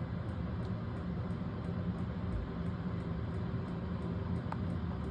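HLN 4 kW diesel heater running steadily: a low combustion-and-fan hum with faint, regular ticks about two or three a second.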